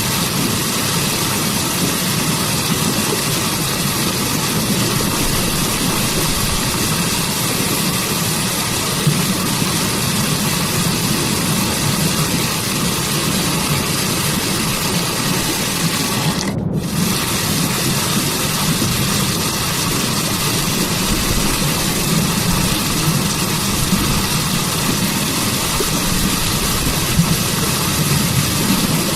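Waterfall and forest stream water rushing steadily, an even hiss with a brief dip in the higher range a little past halfway.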